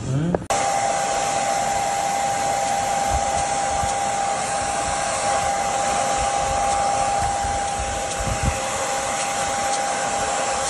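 Handheld hair dryer running steadily, blowing on hair, with a constant high whine over its rush of air; it cuts in abruptly about half a second in.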